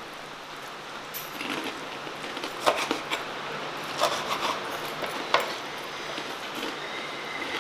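Several sharp clicks and light knocks a second or so apart, over a steady low hum.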